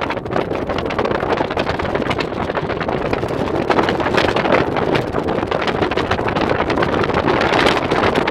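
Off-road vehicle driving at speed over a rough dirt track: a steady rush of engine and tyre noise with constant rattling and jolts, and wind buffeting the microphone.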